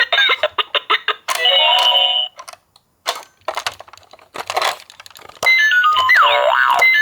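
Toy ambulance's electronic sound module: a short electronic jingle with clicks around it, then a run of stepping-down beeps leading into a siren tone sweeping up and down, twice, near the end.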